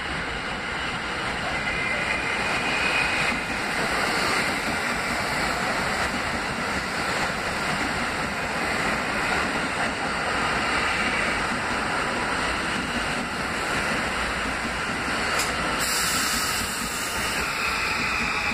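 An MTA R160B subway car train with Alstom propulsion running past close by, a steady rumble of its wheels on the rails. A hiss rises near the end.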